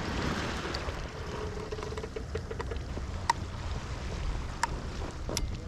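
Wind rumbling on the microphone, with a short pulsing buzz between about one and three seconds in and a few sharp clicks near the end.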